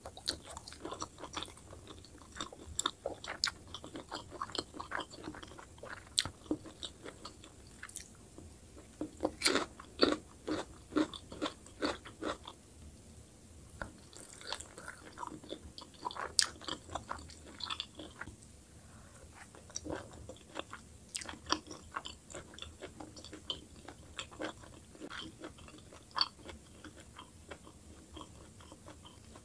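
Close-miked chewing of a mouthful of sauced Zikoba chicken: many soft, irregular wet crunches and mouth clicks, thickest and loudest about a third of the way in.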